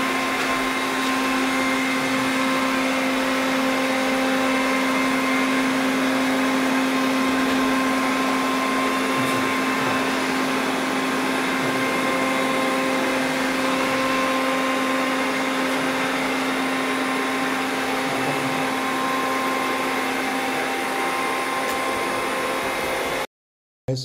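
Lenovo T1 Pro robot vacuum cleaner running on its first test, a steady whine over the rush of its suction fan. It cuts off suddenly near the end.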